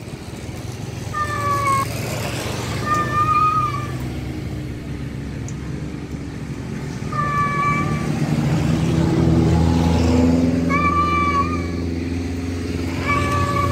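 A tom cat meowing about five times, each call short and fairly even in pitch, calling for a female. A motor vehicle engine drones underneath and grows louder about two-thirds of the way through.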